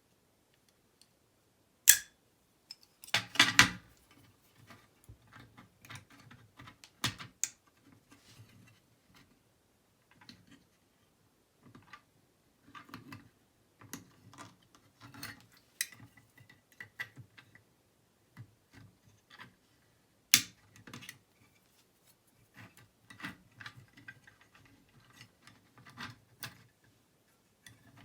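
Small metal parts of an antique Chubb six-lever lock being handled as it is taken apart: scattered light clicks, ticks and scrapes as the levers are worked out, with a few sharper metallic clicks, the loudest about two seconds in and again about twenty seconds in.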